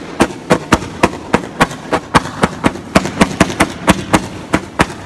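100-shot consumer firework cake firing its shots in rapid succession, each launch a sharp bang, about four a second.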